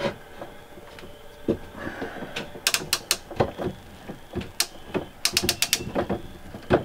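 Ratcheting PEX crimp tool being squeezed down on a half-inch clamp over a PEX fitting: its ratchet clicks over and over in uneven runs as the jaws close the clamp.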